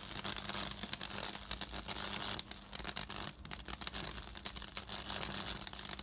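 High-voltage arcing from a microwave-oven transformer burning a fractal path through wet wood: a dense sizzling crackle of sparks over a steady low mains hum.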